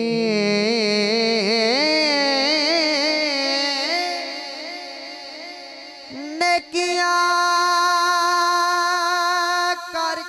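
A young man singing into a microphone through a PA, a solo voice drawing out a long wordless melismatic line in the style of a Punjabi rubai recitation. The line winds and wavers for the first few seconds, breaks off briefly about six seconds in, then settles into one long held note.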